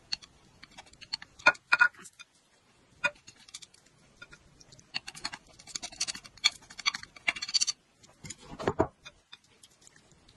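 Wooden chopsticks scraping and knocking against a ceramic bowl as a heap of chopped fresh red chillies is pushed out onto a platter of noodles. It comes as a run of irregular clicks and scrapes, thickest in the middle, with a duller thump a little after.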